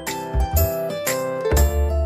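Background music: a melody of short pitched notes over chords. The deep bass drops out for about the first second and a half and comes back near the end.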